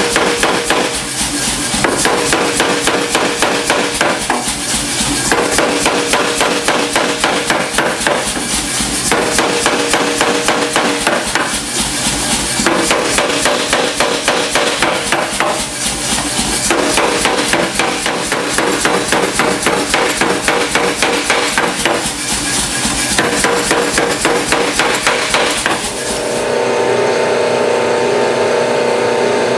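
Power hammer pounding a red-hot steel block held in tooling, a rapid, steady run of blows several a second. Near the end the hammering stops and a steady machine hum takes over.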